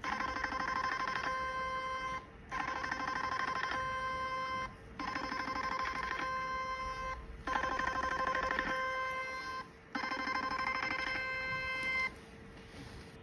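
Portable HIFU handpiece sounding its electronic firing tone as the cartridge fires on the skin: five bursts of about two seconds each with short pauses between them, each burst a rapid trill.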